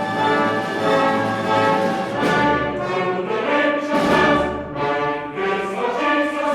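Orchestral music: an instrumental passage without singing, with held chords that change about every second.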